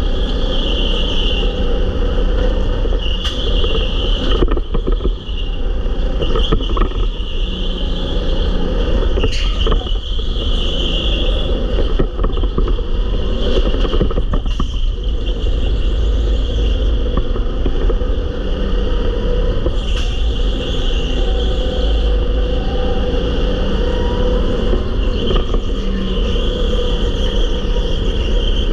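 Sodikart RT8 rental go-kart lapping an indoor track, heard from a camera mounted on the kart: continuous engine and tyre noise with heavy wind rumble on the microphone, and a few brief knocks along the way.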